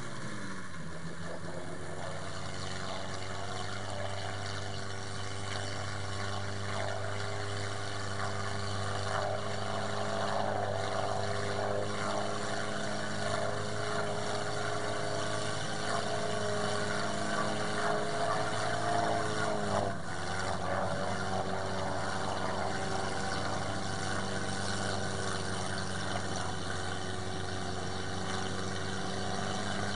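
Volvo Bv202 tracked amphibious vehicle's engine running under load as it wades through floodwater. The engine picks up revs in the first second, holds a steady note, and dips briefly about two-thirds of the way through before settling again.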